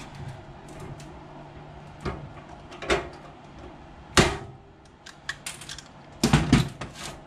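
Workshop handling noise: a sheet-metal fan shroud and hand tools knocking and clicking on a metal workbench. There are a few separate knocks, then a quick run of clicks and clunks near the end as a tool is picked up, over a low steady hum.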